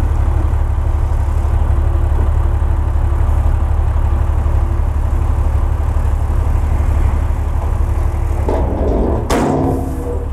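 Dump truck's diesel engine running steadily with a low drone while its tipper bed is raised. About eight and a half seconds in, the load of soil and rock slides out of the bed with a rush and one sharp knock.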